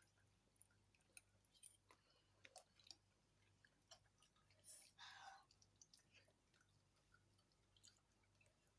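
Faint wet chewing and small mouth clicks of a person eating. One longer, noisier sound comes about five seconds in.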